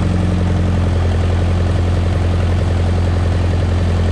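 Backhoe loader's diesel engine running steadily, heard close up from inside the operator's cab while the extendable boom is worked.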